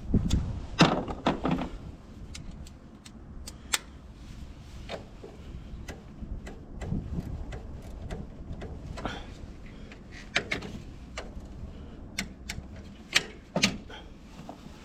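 Scattered clicks, knocks and clunks of hand work on a car, a cluster of louder ones in the first two seconds and two more near the end, over a steady low rumble.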